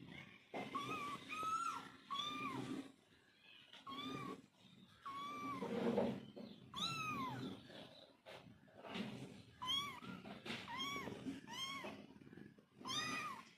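Kittens and their mother cat meowing, a string of short high-pitched meows coming about once a second.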